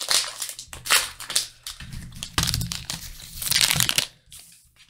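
Pokémon booster-pack foil wrapper crinkling and trading cards rustling as they are handled and flipped through, in irregular crackly strokes.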